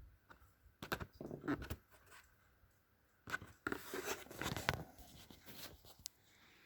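Clicks, scrapes and rustles from objects being handled, in two short clusters: one about a second in and another around four seconds in.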